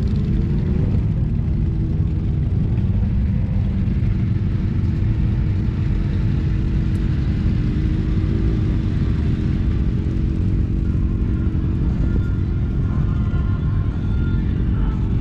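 Motorcycle engine running with a steady low rumble, its pitch shifting slightly with the revs. From about twelve seconds in, a few faint higher steady tones join in.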